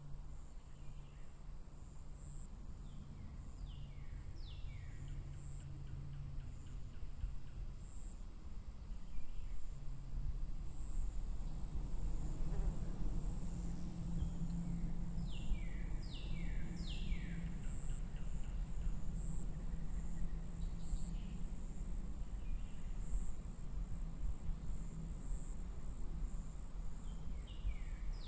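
Outdoor meadow sound: a steady, very high insect trill with short bird calls, each a quick run of falling chirps, heard three times, over a low rumble and hum.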